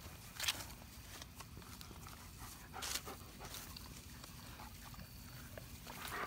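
Dogs sniffing and moving about in grass close by, with a few short sharp noises.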